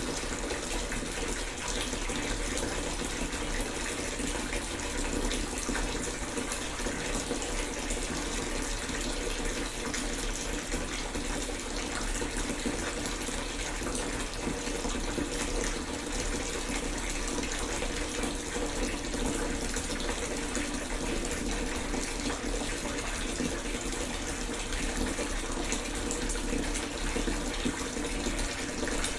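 Bath tap running steadily, water pouring into a tub in an even, unbroken rush.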